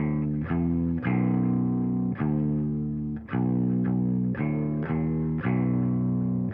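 Music: a distorted guitar and bass riff of long held notes that change every half second to a second.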